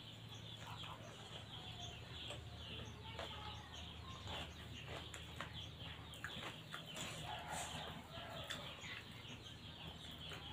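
Faint bird calls in the background, scattered short sounds over a steady low hum.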